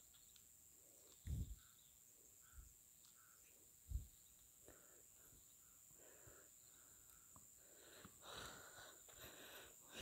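Near silence outdoors: a faint steady high-pitched tone, with a few soft thumps.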